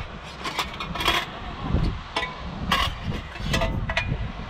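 Thin metal folding panels and a wire frame being handled and unfolded: a string of light metallic clicks and clatters, several with a brief ring.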